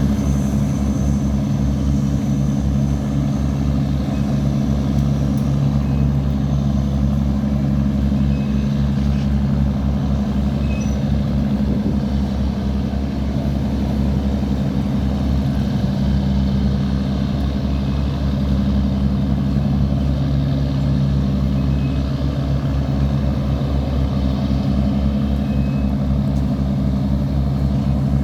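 Diesel boat engine running steadily: a loud, low drone with a rapid throb underneath.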